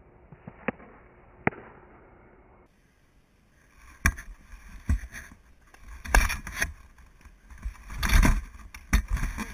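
Two sharp knocks of a softball making contact at home plate, then a run of louder, closer sharp knocks and heavy rumbling thuds.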